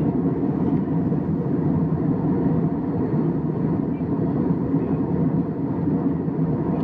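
Steady low rush of jet airliner cabin noise in flight, the engines and the air streaming past the fuselage heard from a window seat by the wing.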